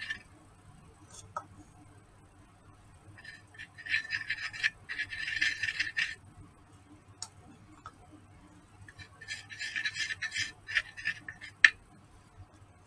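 Two bursts of quick scraping and clicking, a few seconds each, as a thin stick works white-tinted epoxy resin into the recess of a turned olive wood bowl. A single sharp click follows near the end.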